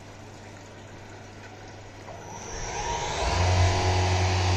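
Home-built CNC vertical mill starting a program: faint coolant trickle, then about two seconds in the spindle spins up and the flood coolant sprays onto the part, the sound rising over a second into a loud, steady machine run with a low hum.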